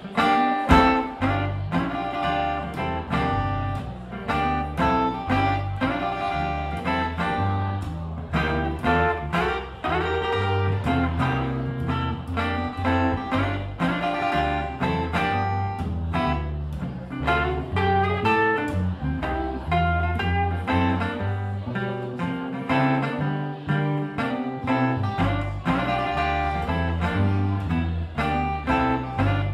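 Acoustic guitar and upright double bass playing a blues instrumental together, the guitar picking out notes over a plucked bass line. The bass drops out for a few seconds about three quarters of the way through while the guitar carries on.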